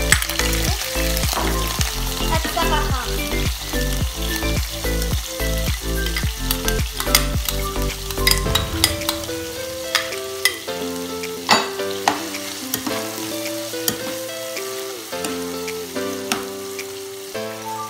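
Shrimp, ham, onion and garlic sizzling in hot oil in a frying pan, with sharp clicks of a spatula stirring against the pan. Background music with a steady beat plays under it; the low bass part drops out about halfway through.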